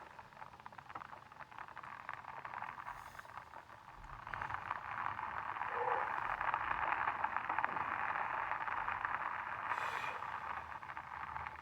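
Steady rain pattering, growing louder about four seconds in, with a few brief hisses.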